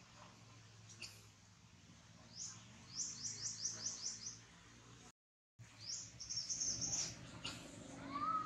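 High-pitched animal chirps: a quick run of about seven short falling chirps, then, after a brief dropout, a longer run of high, held chirping calls.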